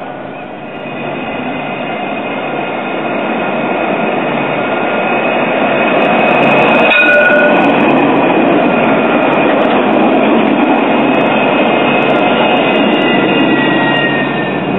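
Alstom Citadis low-floor tram passing close by: its running noise swells over the first few seconds and stays loud as the cars go past, a steady rumble with a thin high whine over it. A sharp click about seven seconds in, and a short falling whine near the end.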